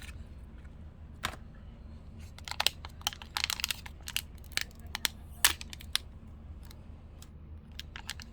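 Mystery enamel pin packaging being torn and crinkled open by hand: quick, irregular crackles and rips that bunch up in the middle, over a low steady hum.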